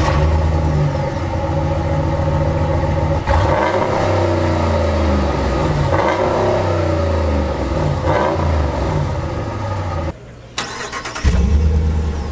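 Ram 1500 pickup's 5.7-litre Hemi V8 heard at the tailpipe, idling and then revved several times, its pitch rising and falling with each blip. About ten seconds in the sound drops out briefly, then a Hemi idles again, louder.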